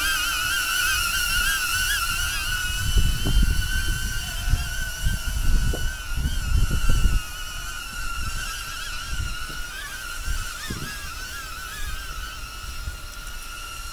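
Small camera drone's propellers whining steadily at a high pitch, the tone wavering slightly as the drone holds itself in strong wind. Wind buffets the microphone with low rumbling gusts from about three to seven seconds in.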